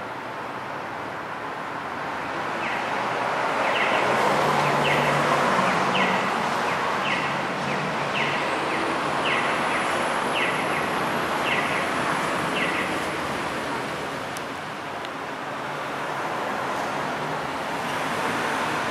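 Street traffic noise from cars, swelling for a few seconds as a vehicle passes. Over it, a short high chirp repeats about once a second, starting a few seconds in and stopping a little past the middle.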